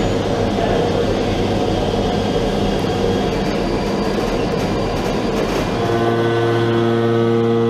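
Steady heavy machine noise of a helicopter running on a ship's deck. About six seconds in, a steady deep horn-like tone with overtones comes in and holds.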